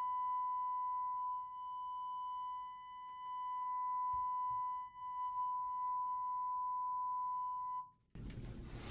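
A steady 1000 Hz sine test tone from a 6.5-inch car woofer driven by a car stereo head unit, swelling and dipping slightly in level, then cutting off suddenly near the end. A short burst of rustling noise follows.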